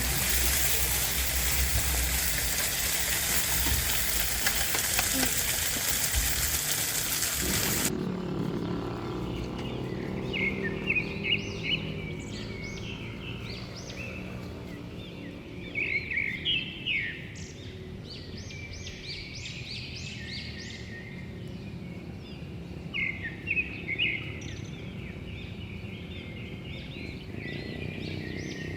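Food sizzling on a grill as a steady hiss, which cuts off suddenly about eight seconds in. Birds chirping follow, in short clusters of calls.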